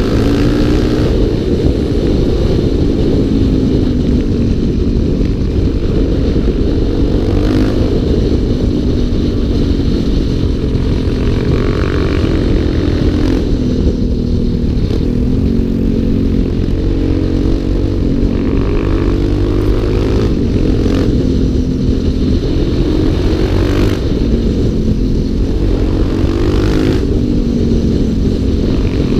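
Single-cylinder four-stroke dual-sport motorcycle engine heard on board while riding, its pitch rising and falling repeatedly as the rider accelerates and eases off through the bends.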